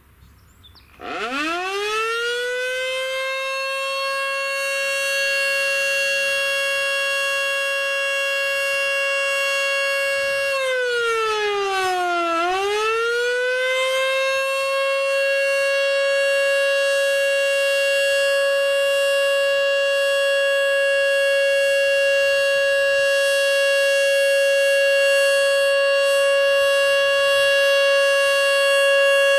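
Federal Signal Model 2 electromechanical siren winding up from a low growl to a steady high single tone about a second in. About ten seconds later the pitch sags as it is briefly switched off by hand, then it winds back up and holds its steady tone.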